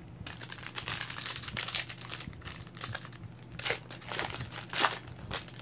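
A 2016 Donruss Optic football card pack being torn open and its wrapper crinkled by hand: irregular crackling and rustling, loudest in a few sharp crinkles in the second half.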